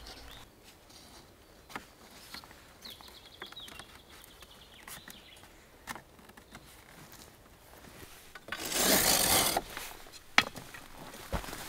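Wooden rods and stakes being handled: scattered light knocks and clicks of wood on wood. About nine seconds in comes a loud scraping rush lasting about a second.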